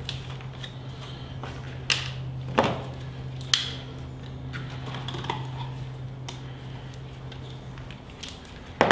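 Scattered light clicks and knocks of tools and parts being handled during outboard fuel-system work, three sharper ones in the second to fourth seconds and a louder knock at the very end, over a steady low hum that stops about a second before the end.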